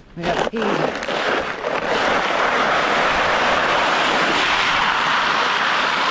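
A makeshift sled sliding over ice: a loud, steady scraping hiss that starts suddenly and holds level for about six seconds, with a short voice in the first second.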